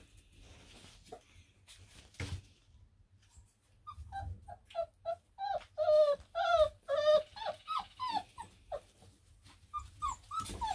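Four-week-old Black and Tan Coonhound puppy whining: a run of short cries, each falling in pitch, about two a second, starting about four seconds in.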